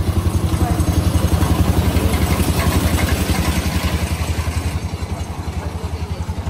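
Small engine of a park toy train running as it moves along, a steady rapid low chugging that eases off a little in the second half.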